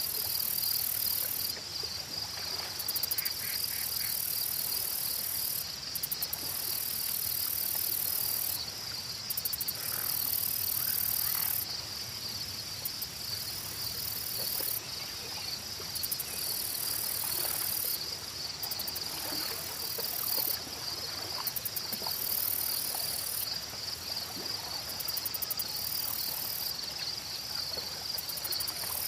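Insects chirring in a forest: a steady high trill runs throughout. Over it an even shriller buzz switches on and off every second or two, with faint scattered clicks and calls lower down.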